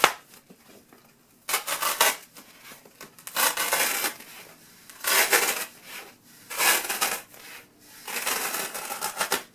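A blade slicing lengthwise through a foam pool noodle, a scratchy, squeaky noise that comes in about five separate strokes with short pauses between them.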